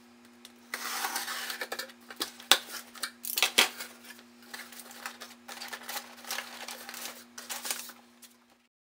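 A cardboard shipping box being opened by hand: flaps pulled back and crumpled brown kraft packing paper rustled and crinkled, with sharp cardboard snaps about two and a half and three and a half seconds in. A faint steady hum runs underneath.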